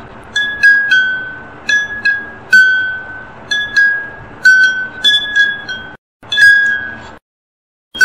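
Porcelain rice bowls holding water struck with a chopstick: about a dozen ringing clinks at three slightly different pitches, played in short falling runs from the highest bowl to the lowest. The sound cuts off abruptly twice near the end.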